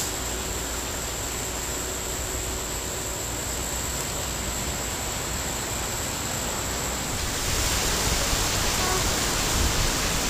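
Steady hissing background noise with no distinct events; it becomes a little louder and brighter about seven seconds in.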